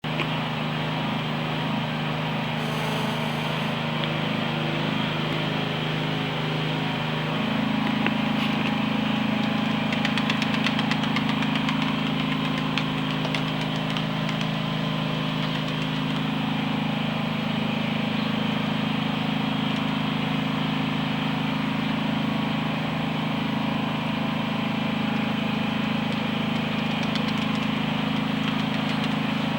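Engine of road-works machinery running steadily, its hum changing tone about seven seconds in.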